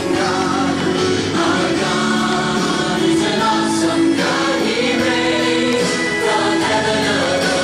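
Christian song playing on a radio, with a choir singing long held notes over a full backing.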